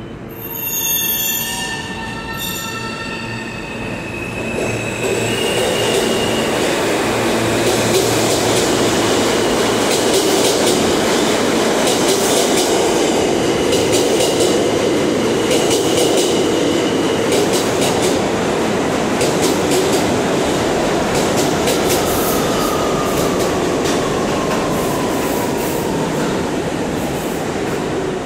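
R160 subway train pulling out of the station: a few short chime tones at the start, then a rising motor whine as it starts to move. A loud steady rumble with rapid wheel clicks over the rail joints follows as the cars run past, with wheel squeal, and a falling whine near the end as it draws away.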